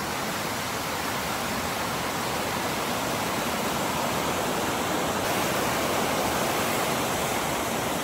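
Steady rushing of rain falling together with the flowing river water.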